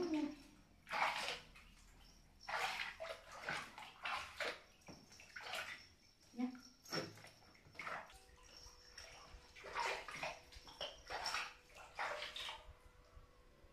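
Water splashing in a small pool in irregular bursts, about a dozen splashes, dying away near the end.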